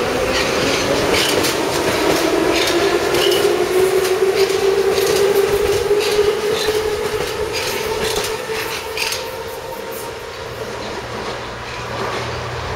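Soviet-built Ev-series metro train running past close by, its wheels clicking rapidly over the rail joints under a steady whine that slowly falls in pitch. The clicking stops and the sound dies down after about nine seconds as the train moves off.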